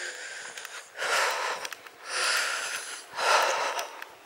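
A woman breathing hard through the microphone, three loud breaths about a second apart, winded from climbing a long hill on foot.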